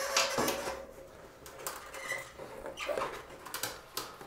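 Rubber fat-bike inner tube handled with gloved hands: irregular rubbery rustling and scraping, with a short squeak about two seconds in.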